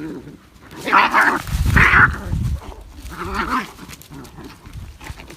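Cats fighting: growls and yowls mixed with hissing, in three loud outbursts, with a few dull thuds from the scuffle around the second outburst.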